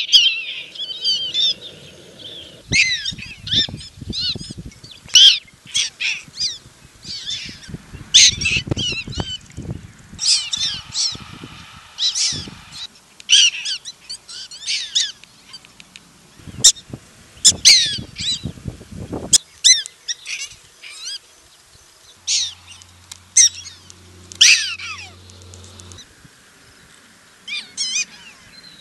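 Black-tailed prairie dogs giving jump-yip calls: runs of short, sharp, high yips repeated over and over, with pups joining in. The call probably signals all is clear. A low rumble sits under the calls at times in the first half.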